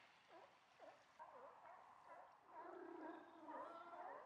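Faint chorus of seals calling across the water: many short overlapping calls, busier after about a second, with a longer low moan in the second half.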